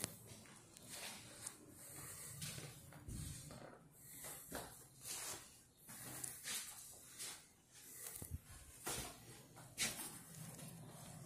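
Faint, irregular rustles and soft thumps from a hand-held phone being carried, with footsteps on the floor.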